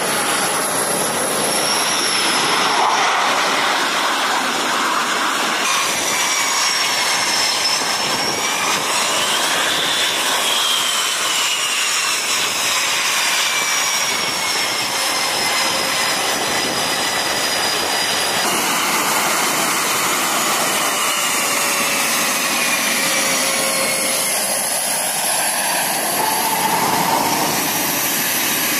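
Jet engines of F/A-18 Super Hornets on a carrier flight deck, a loud steady rush with high turbine whines that rise and then slowly fall in pitch.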